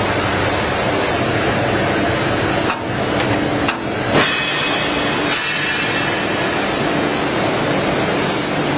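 Veneer splicer machine running: a steady loud mechanical hum, with a few sharp clicks between about three and four seconds in.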